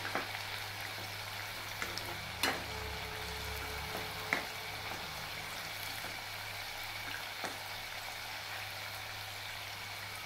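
Sweet pumpkin pakoras deep-frying in hot oil in a kadhai, a steady sizzle as they brown. A few light clicks come through it, about three, as the wire-mesh skimmer touches the pan.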